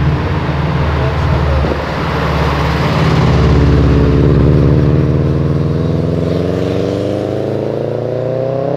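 First-generation Subaru Impreza's flat-four engine driving past and accelerating away, its pitch climbing steadily through the second half.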